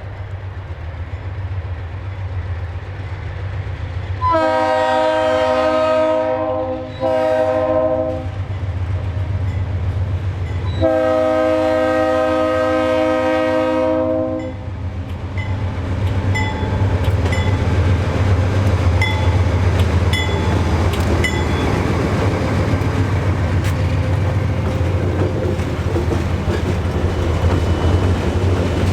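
GE B40-8 diesel locomotive approaching with its engine rumbling, sounding its horn in a long blast, a short one and another long one, then passing close with a louder rush and wheels clicking over rail joints.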